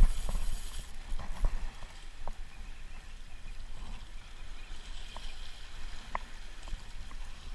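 Sea waves washing and gurgling against shore rocks, with a low rumble on the microphone that is heaviest in the first second.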